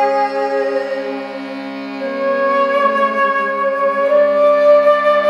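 Meditative music: a small harmonium holding a steady low drone, with a slow melody of long held notes above it that steps to new pitches about two seconds in and again near four seconds.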